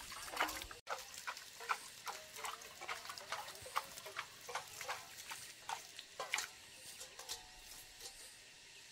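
Short animal calls repeated two or three times a second, thinning out near the end.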